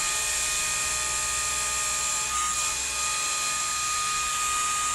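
Small electric motor and propeller of a handheld flying orb ball toy running at full speed: a steady whine with a firm pitch and overtones, held level.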